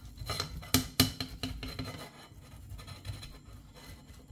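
Boiled young potato rasped back and forth on the coarse side of a flat metal hand grater, in quick irregular strokes, with a couple of sharp clicks about a second in; the strokes grow softer in the second half.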